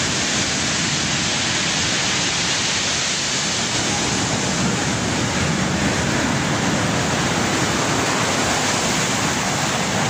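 Storm surf on the Black Sea: heavy waves breaking and foam washing up the shore, a steady, continuous rushing with no single breaker standing out.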